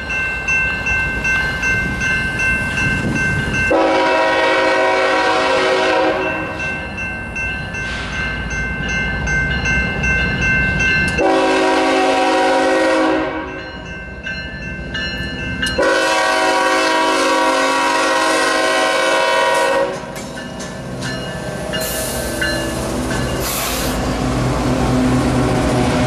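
A GE ES44AC diesel locomotive's multi-chime air horn blowing for a grade crossing in long and short blasts, the sequence ending in a long one. After the horn stops, the heavy diesel engines rumble past at close range as the loaded coal train comes over the crossing.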